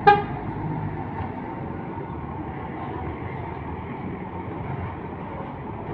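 Intercity coaches' diesel engines running as a bus pulls away, over steady traffic rumble. A single short, sharp horn toot comes right at the start.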